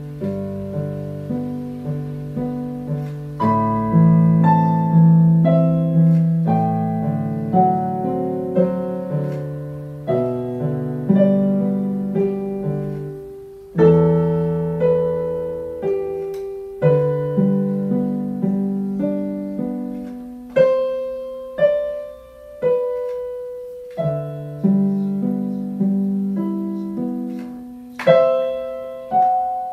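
Portable electronic keyboard on its piano voice, played with both hands: a low accompaniment under a higher melody, each note struck and left to fade. Louder chords are struck about halfway through and near the end.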